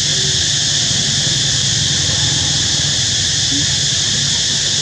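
Steady high-pitched buzz of an insect chorus, with a low rumble beneath.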